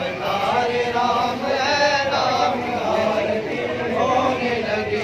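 A group of men chanting a Hindu devotional aarti together, many voices singing in unison without a break.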